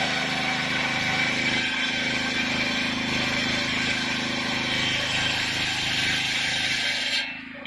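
Gasoline engine running steadily, belt-driving a sawmill circular saw that is ripping lumber. The sound drops away sharply near the end.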